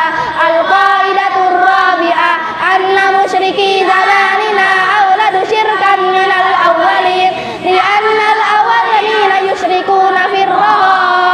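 A group of children chant in unison, a sing-song group recitation of an Arabic religious text. Their voices run on in long, even phrases.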